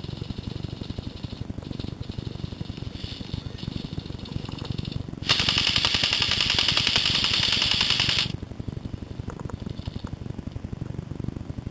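Airsoft electric rifle firing one full-auto burst about five seconds in: a fast, loud mechanical chatter that lasts about three seconds and stops abruptly. A steady low rumble runs underneath.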